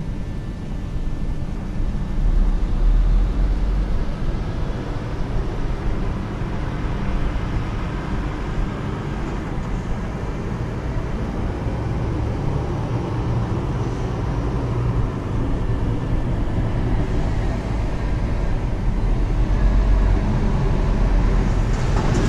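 Scania R450 truck on the move: its 13-litre inline-six diesel gives a steady, deep rumble under continuous road noise.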